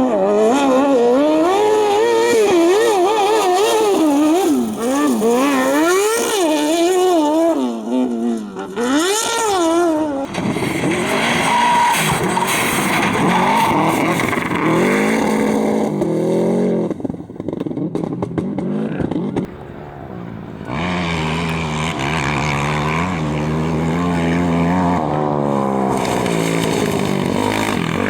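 Competition engines being driven hard, revving up and down rapidly over the first ten seconds, then in several short cuts with engines accelerating and holding steadier notes.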